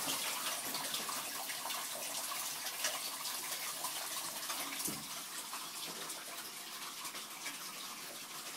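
Water running steadily out of a homemade magnetic vortex purifier's thin outlet tube into a plastic bottle: an even hiss of flowing water that fades slightly over the span.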